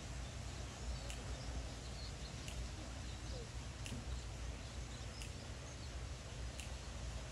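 Outdoor background noise with a steady low rumble and faint bird chirps, cut by a short sharp tick that repeats about every second and a half.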